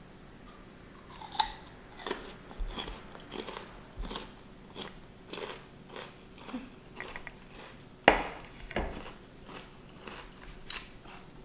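Raw jicama slices being bitten and chewed: a sharp, crisp crunch as a piece is bitten about a second in, then steady crunchy chewing two or three times a second, with a second loud bite about eight seconds in.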